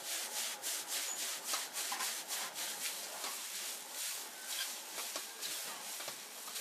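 Metal spatula scraping and tossing noodles around a wok, a quick run of scrapes about three a second over a steady frying hiss.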